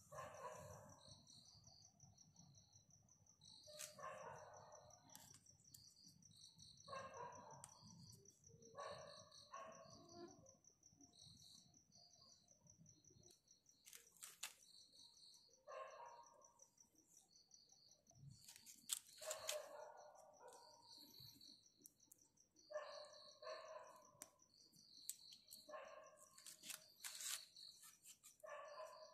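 Faint background: a steady high insect trill with a pulsing chirp, and short calls every few seconds. A few sharp clicks, the loudest about 14 and 19 seconds in.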